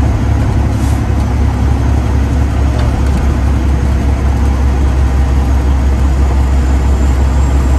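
Freightliner Classic XL semi truck's diesel engine running steadily, a deep drone with road noise, heard from inside the cab.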